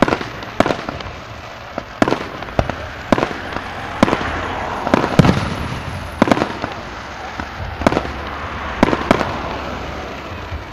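Aerial fireworks display: shells bursting in an irregular series of sharp bangs, about a dozen in ten seconds, over continuous crackling that is thickest around the middle.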